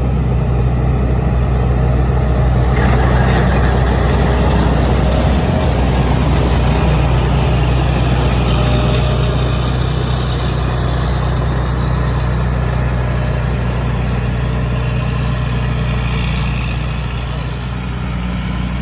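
Rice combine harvester's engine running steadily: a loud, even low drone that eases off slightly near the end.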